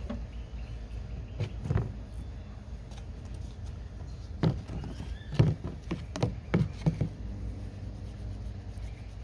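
Several knocks and clunks as the motorcycle's exhaust pipe parts are handled, one early and a cluster of five between about four and seven seconds in.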